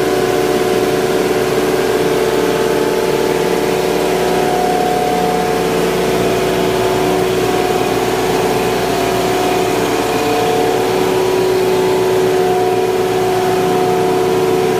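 Ice plant machinery running: a loud, steady hum of electric motors with several held tones.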